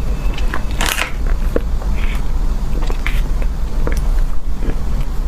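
Close-miked mukbang eating: bites and chewing of a frozen cream-filled cake, with scattered sharp mouth clicks, over a steady low hum.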